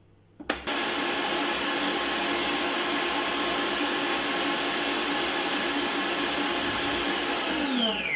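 Arno stand mixer's motor running steadily, its wire whisk beating chilled cream in a stainless steel bowl; it starts just after a click about half a second in. Near the end it is switched off and its whine falls in pitch as it spins down.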